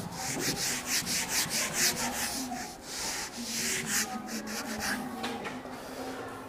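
Dry-erase marker stroking across a whiteboard as a diagram is drawn: a quick, uneven string of short scraping strokes.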